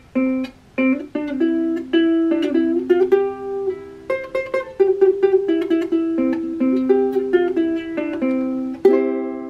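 Makala ukulele played alone, a run of separate plucked notes and chords, ending on a chord that is left to ring out near the end.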